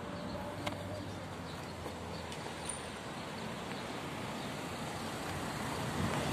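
Steady noise of distant road traffic.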